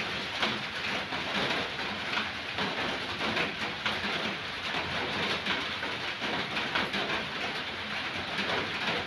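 Steady rain: an even, dense hiss with a fine patter.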